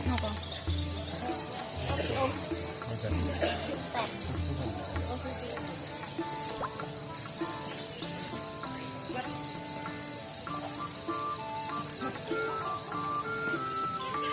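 Insects trilling: a steady, high, finely pulsing chorus, with music playing underneath.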